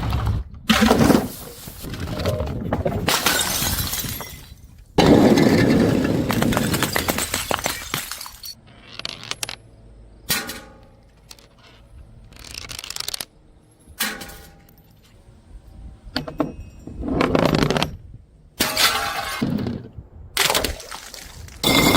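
Glass bottles smashing one after another, about ten separate crashes with shards clinking and scattering after several of them.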